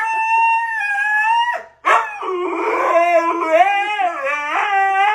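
Dog howling: one long, high, steady howl, then after a short break a lower howl that wavers up and down in pitch.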